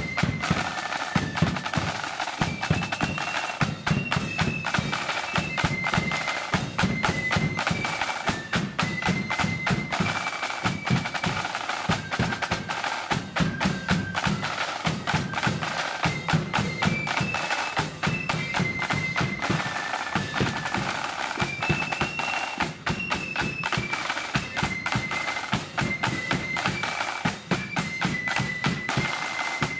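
Marching flute band playing a tune: high flutes carry the melody over rapid side-drum rolls and a pounding bass drum.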